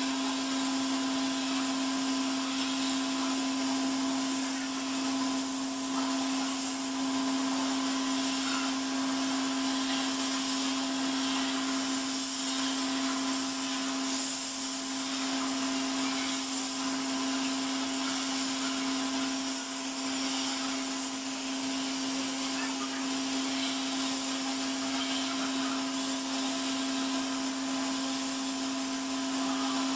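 CNC milling machine spindle running at a steady high whine while a pointed chamfering cutter machines a metal narrow-wide bicycle chainring, with a hiss underneath and short high-pitched cutting chirps now and then.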